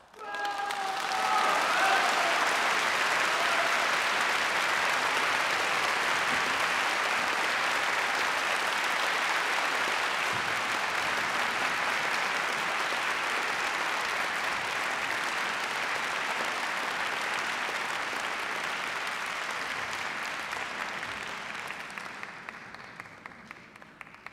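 Concert-hall audience applauding, starting abruptly and holding steady, with a voice or two calling out in the first couple of seconds. The clapping dies away over the last few seconds.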